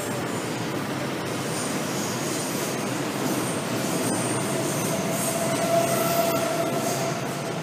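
A 2018 Honda PCX125 scooter's single-cylinder engine running with a steady rumble. A thin whine rises about four seconds in and fades near the end.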